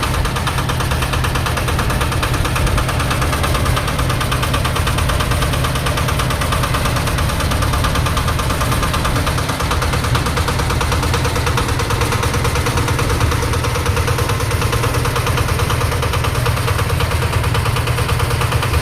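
Dongfeng 8 hp single-cylinder diesel engine driving a Tiger concrete mixer, running steadily with an even, rapid knocking beat.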